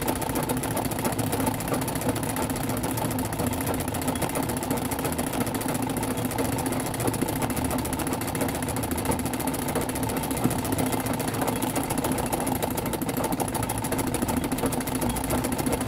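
Treadle straight-stitch sewing machine running steadily without a pause, its needle stitching rapidly as a solid satin fill is embroidered freehand in a hoop.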